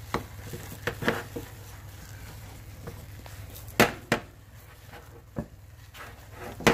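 Spatula stirring a thick oat-flour dough in a small metal saucepan, knocking and scraping against the pan in irregular clicks, the loudest about four seconds in and at the very end. A steady low hum sits underneath.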